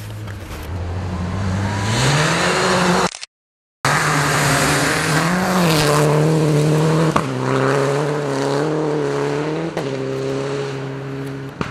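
Rally car engine revving hard as the car passes close by on a gravel stage. Its note climbs about two seconds in, then rises and falls and steps down with gear changes as the car pulls away. The sound drops out completely for under a second about three seconds in.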